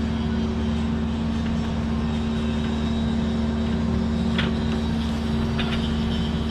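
Steady mechanical drone of boatyard machinery running, an even engine hum that holds level throughout. Two faint clicks come a little past the middle.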